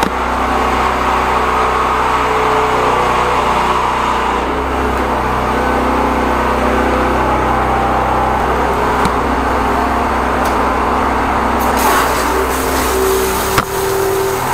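High-pressure drain jetter running steadily: the engine-driven pump's even drone, with a broad hiss joining about twelve seconds in.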